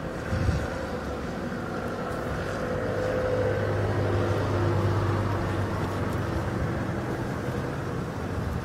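A car driving past on a snowy street, its engine hum growing louder to a peak about halfway through and then fading.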